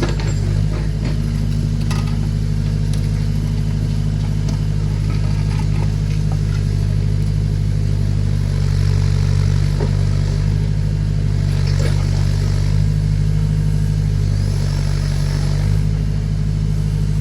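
Tractor engine running steadily under load while powering a backhoe digging, with a few knocks as the tooth bucket works against stones and ground.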